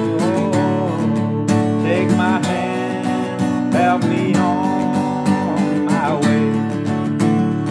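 Acoustic guitar strummed steadily while a harmonica in a neck holder plays a melody over the chords, its notes bending up and down.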